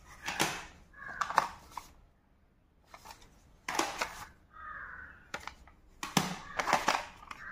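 Plastic audio cassette cases clacking and rattling against each other as they are handled, in several short bursts.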